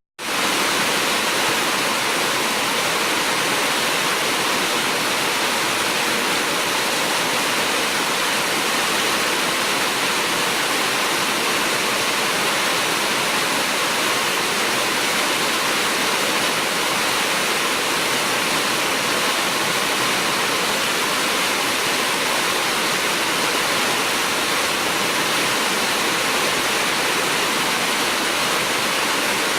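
Heavy rain falling steadily: an even, dense hiss that drops out for a split second at the very start.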